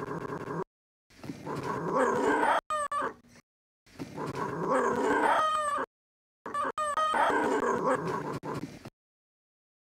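Recorded puppy noises played back as samples from a drum-pad app: several short clips, some with sliding pitch, each starting and stopping abruptly with dead silence between them. A short buzzing sample plays at the very start, and a longer silence falls near the end.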